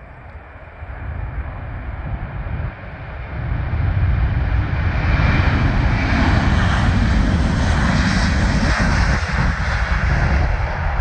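Jet engines of a twin-engine widebody airliner at takeoff thrust on its takeoff roll. The sound grows louder over the first four seconds as the jet approaches, then holds loud as it passes.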